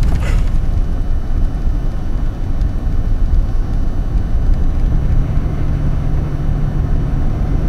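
Vehicle engine and tyre noise heard from inside the cabin while driving on a paved road: a steady low rumble. A steady low hum joins about five seconds in.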